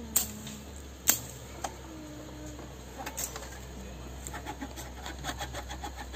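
Two sharp knocks in the first second or so, a few more around the middle, then a run of quick, evenly spaced taps, about four a second, over the last two seconds.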